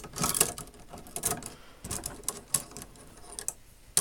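Steel spring calipers clicking and clinking against each other and the metal drawer as they are handled, with a sharp click near the end.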